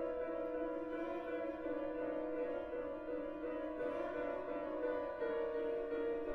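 Contemporary chamber music for bowed string and piano: long, steady held notes from the bowed string over the piano.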